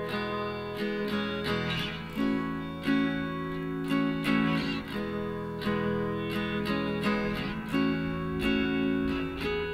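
Background music of strummed acoustic guitar.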